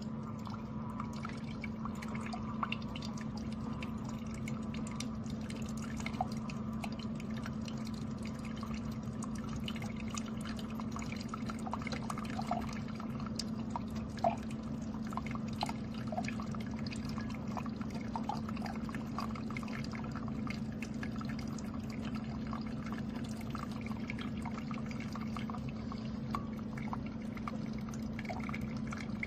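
Keurig K-Slim single-serve coffee maker brewing: a steady low hum from the machine while liquid streams and drips into a cup, with scattered small drip ticks.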